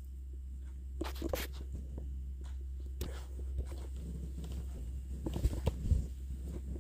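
Rustling of a fleece blanket and clothing, with knocks of the phone being handled, as a person gets up from a sofa bed; short bursts of rustling about a second in, at three seconds and again near six seconds, over a steady low hum.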